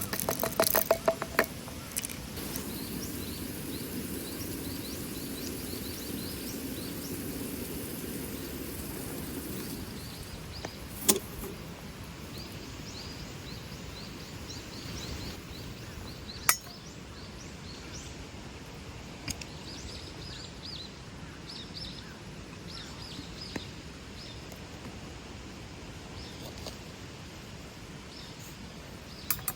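Outdoor ambience with small birds chirping again and again over a steady background hiss, broken by a few single sharp clicks or knocks.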